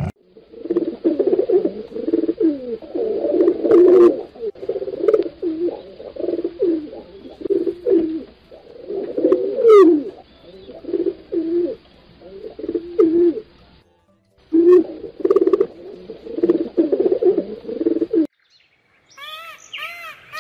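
Rock pigeons cooing, many soft overlapping coos one after another, with a short break about two-thirds of the way through.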